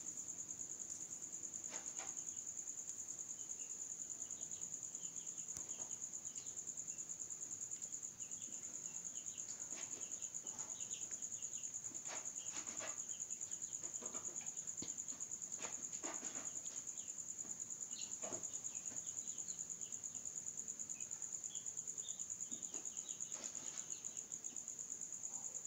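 Steady, high-pitched, fast-pulsing trill like crickets, with faint scattered higher chirps and a few soft clicks.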